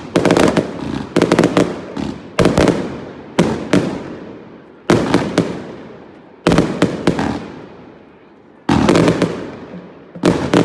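Aerial fireworks bursting overhead: loud sharp bangs about every one to one and a half seconds, often in quick pairs, each trailing off in crackle and echo. There is a short lull about two-thirds of the way through.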